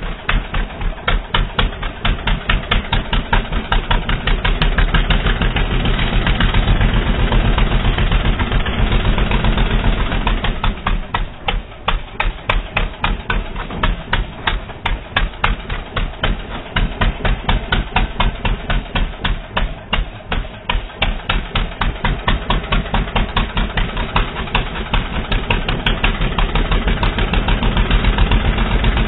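ATV engine running with a rapid, even putter of firing strokes, swelling and easing in loudness as it goes.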